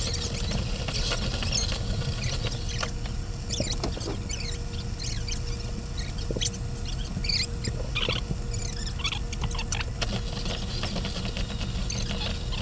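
T-bone steak searing in oil in a skillet: irregular small crackles, pops and squeaks of spitting fat over a steady low rumble.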